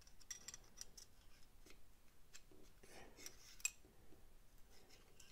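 Faint scattered metal clicks and light scraping as the Reate Exo gravity knife's metal handle halves and parts are fitted together by hand, with one sharper click about two-thirds of the way through.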